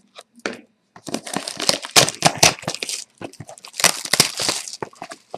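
Plastic wrap on a hockey card box being torn open and crumpled: two long stretches of loud crinkling and tearing with small clicks and rustles around them.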